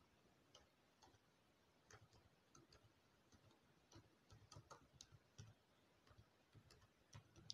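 Very faint, irregular clicks of computer keyboard keys as a phrase is typed.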